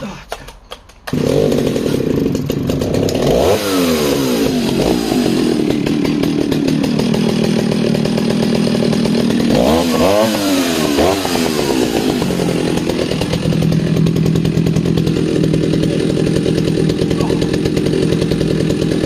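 1960s Stihl two-stroke chainsaw pull-started, firing and catching about a second in, then running. It is revved up and back down twice, about three seconds in and about ten seconds in, and otherwise runs steadily.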